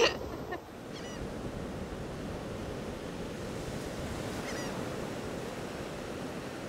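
Surf washing steadily onto a sandy beach, with a sharp knock at the very start and a few faint, short high bird chirps about one second and four and a half seconds in.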